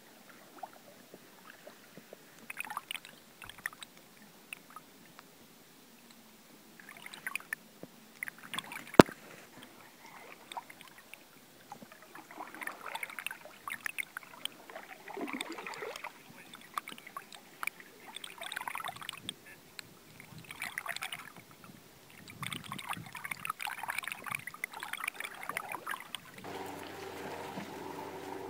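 Canoe being paddled: irregular paddle strokes with water splashing and dripping, and one sharp knock about nine seconds in. Near the end a steady droning tone with several pitches starts and carries on.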